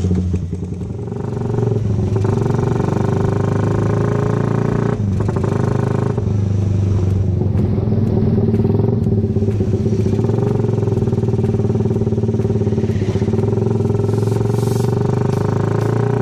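Suzuki Raider 150 motorcycle's single-cylinder four-stroke engine running as the bike pulls away and rides along a street. The note is steady and gets louder over the first couple of seconds, with a brief dip about five seconds in.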